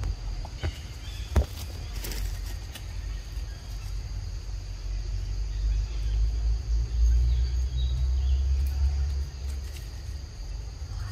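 Steady insect chorus of crickets or cicadas, a constant high-pitched drone. Under it is a low rumble on the microphone, heaviest in the second half, with a few sharp clicks in the first two seconds.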